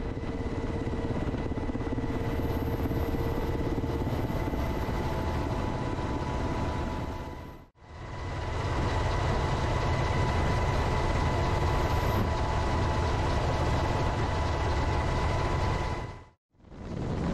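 Steady engine and rotor noise heard from aboard an aircraft in flight, with a constant whine over a low rumble. It cuts out abruptly twice, about eight seconds in and again a second before the end, then resumes.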